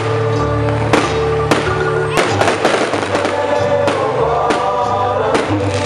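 Fireworks going off in a string of irregular sharp bangs and crackles over loud music with sustained notes and a heavy bass.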